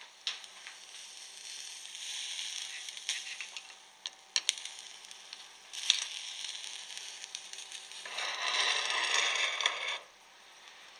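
Electric arc in a cup of salt water, sizzling and crackling with scattered sharp clicks. A louder, rougher burst of noise comes about eight seconds in and lasts about two seconds before the sound drops away.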